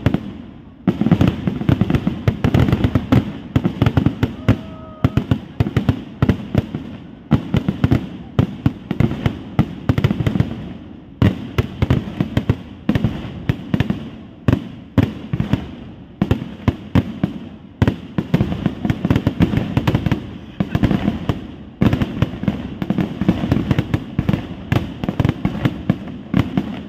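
Fireworks display (vedikkettu): a dense, continuous barrage of firework and firecracker bangs and crackles coming in swelling volleys, with a brief pause about a second in.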